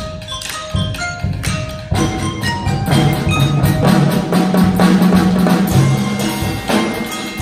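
Live percussion ensemble playing: short mallet-keyboard notes over drum strokes, growing denser about two seconds in, with held low timpani notes partway through.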